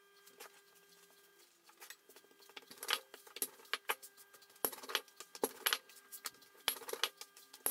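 Unleavened flatbread cooking in a dry, hot non-stick frying pan while a hand pats and turns it: irregular sharp clicks and crackles begin about two seconds in, over a faint steady hum.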